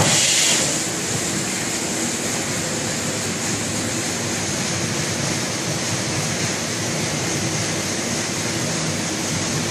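Steady rushing noise of running machinery, with a brief louder hiss in the first half second.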